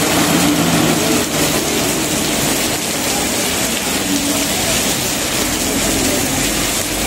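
Heavy rain pouring down steadily on a street, with the engines of passing traffic, a truck among them, running underneath.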